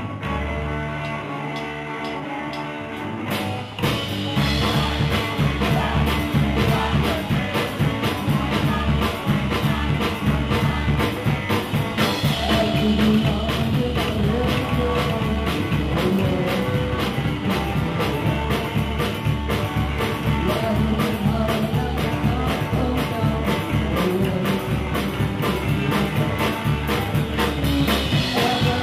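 Live rock and roll band playing: upright double bass, hollow-body electric guitar, drum kit and a woman singing. It starts quieter with bass and guitar, then the full band with drums comes in about three and a half seconds in.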